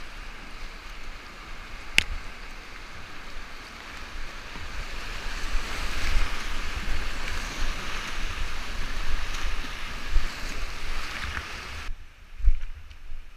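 River rapids rushing around a whitewater kayak, with a low rumble of wind buffeting the microphone and one sharp click about two seconds in. The rush grows as the boat drops through foaming water around six seconds in, then cuts off abruptly near the end to a much quieter scene with a few low thumps.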